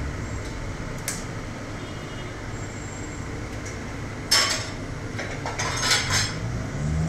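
Metal kitchenware clanking: steel ladle, strainer and pans knocking together. A light click comes about a second in, a sharp ringing clank at about four seconds, and a short run of clatter soon after.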